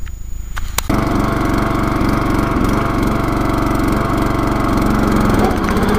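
Riding lawn mower's small engine running steadily under way, speeded up by a drive-pulley swap. It cuts in loud and sudden just under a second in, after a faint low hum.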